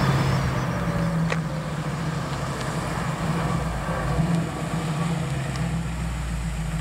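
1970 Plymouth Cuda's 440 Six Pack V8, with three two-barrel carburettors and dual exhaust, running with a steady low rumble as the car rolls slowly up close.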